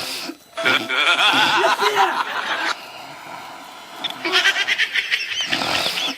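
Loud, exaggerated comic snoring with a wavering, bleat-like pitch, in two long bouts: the second starts about four seconds in, after a quieter pause.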